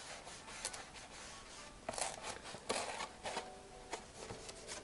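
Rubbing strokes of an applicator spreading wet colour across cardstock, in several scrubbing passes, the sharpest about two and three seconds in.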